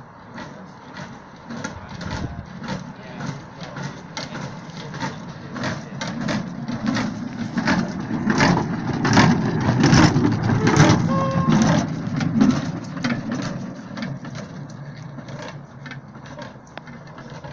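Hand-pumped railway pump cart (platelayers' trolley) rolling along the track, its steel wheels rumbling with a quick run of clicks. It grows louder as it passes close, loudest about ten seconds in, then fades as it rolls away.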